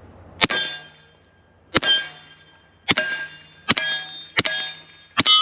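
Six suppressed .45 pistol shots from an FNX-45 with a Silencer Co Octane 45, fired about one a second. Each shot is a sharp crack followed by a metallic ringing clang as the bullet strikes a target.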